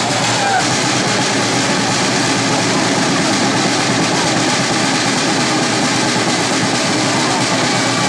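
Crowd of spectators cheering and shouting, a loud, steady noise with no pauses.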